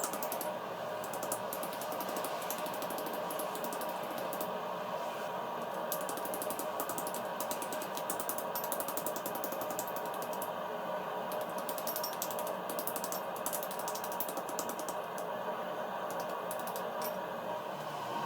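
A machine running with a steady hum and a rapid, continuous rattle of clicks.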